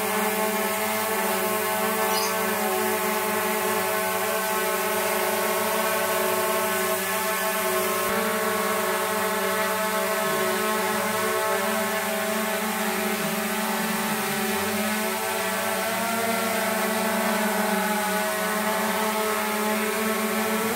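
DJI Mavic Air 2 quadcopter hovering, its four motors and propellers giving a steady whine made of several stacked tones. The pitch wavers slightly as the drone holds its position.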